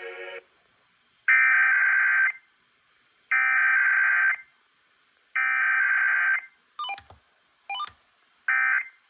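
Emergency Alert System SAME data bursts: three harsh, buzzy digital tone bursts of about a second each, about a second apart, the coded header of a Required Weekly Test. Then two brief clicks and two shorter bursts, the start of the end-of-message code.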